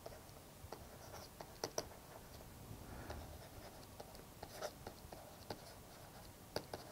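Faint scratching and tapping of a stylus writing by hand on a tablet: short irregular strokes and ticks as words are written out.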